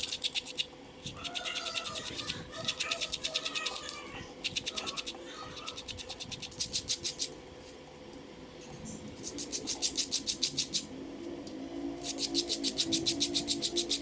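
Fast rhythmic scraping in bursts of about a second, roughly a dozen strokes a second, with short pauses between bursts.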